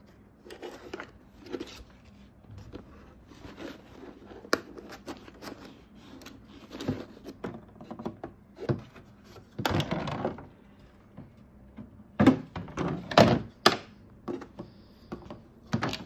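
Plastic parts of a Roidmi Eva docking station being handled: scattered clicks and knocks of hard plastic, a scraping rustle about ten seconds in, then several louder thunks near the end as the lid is opened and a clear plastic tank is lifted out.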